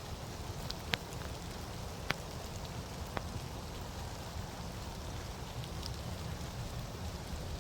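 Steady rain falling, with a few sharp, louder drop taps close by.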